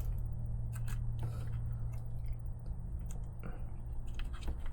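Scattered small clicks and taps of RC car parts being handled and fitted by hand, over a steady low hum.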